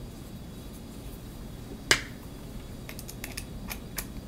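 Clicks from handling 3D-printed plastic parts and a small screwdriver: one sharp click about two seconds in, then several lighter clicks near the end as the screwdriver goes into screws in the printed part.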